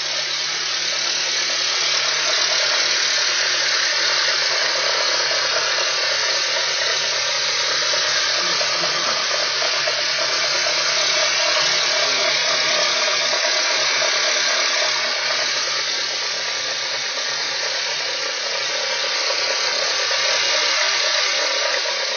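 Honda Civic engine running cold with a gear engaged, giving off a steady whirring hiss. The noise shows up only when the engine is cold and in gear.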